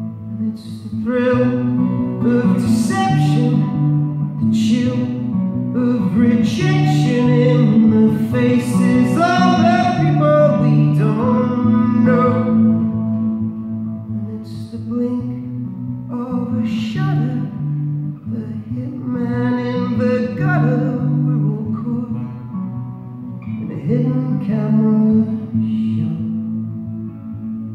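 Live acoustic guitar and a male singing voice performing a song, with long held sung notes over sustained low chords.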